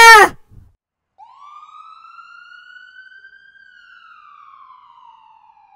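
Emergency vehicle siren wailing: one slow rise in pitch, a slow fall, and the start of another rise near the end, coming in about a second in.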